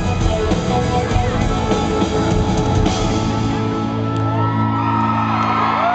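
Live rock band playing loudly with drums, acoustic and electric guitars, breaking off after about three and a half seconds onto a held, ringing chord. Crowd whoops and cheers rise over the chord near the end.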